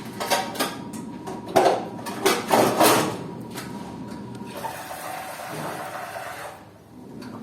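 Water splashing in loud bursts for about three seconds, then running or pouring steadily for about two seconds before stopping suddenly.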